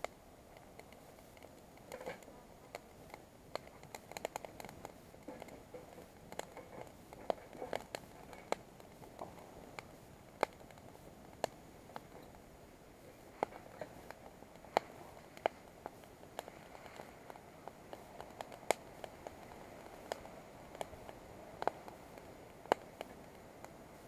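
Wood fire crackling in a Tentipi Firebox Hekla 7 steel box stove: irregular sharp pops and snaps over a faint hiss.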